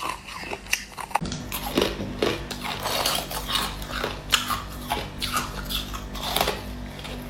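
A person biting and chewing crushed ice: irregular crunches, several a second. A low steady hum joins about a second in.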